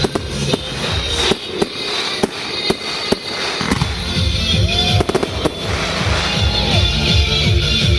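Fireworks going off in quick, irregular bangs and cracks, with a close cluster of reports about five seconds in, over music playing.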